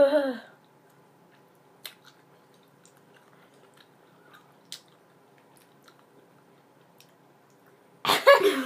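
Faint wet chewing and small mouth clicks from a person chewing a mouthful of big, very sour chewy sweets. There is a brief vocal sound with a falling pitch at the very start, and someone starts talking near the end.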